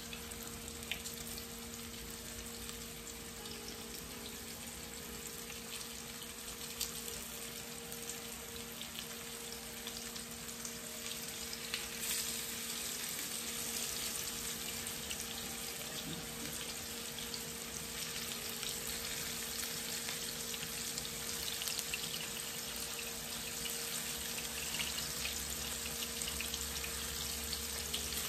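Flour-dredged cod pieces frying in canola oil in a nonstick pan: a steady sizzle with fine crackles, growing louder about twelve seconds in as another piece goes into the pan. A steady low hum runs underneath.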